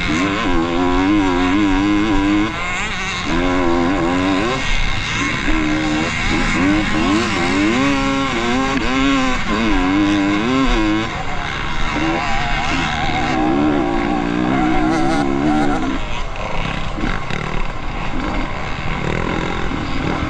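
Off-road racing motorcycle engines revving up and down over and over as the throttle is worked. The rising and falling engine note fades after about three quarters of the way through, leaving a rougher, unsteady engine noise.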